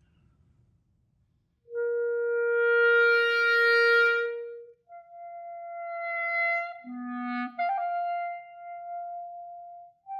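Solo clarinet playing a slow passage in microtones: one long note swells and fades, then a higher note is held with small shadings of pitch, a short lower tone sounding under it briefly.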